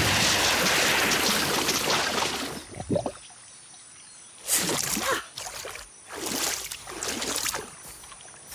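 Rushing, splashing water for about two and a half seconds, then stopping, followed by a few short vocal noises from a cartoon character.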